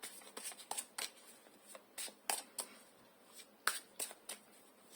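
Tarot cards being handled: a string of irregular crisp snaps and flicks as the cards are shuffled and drawn.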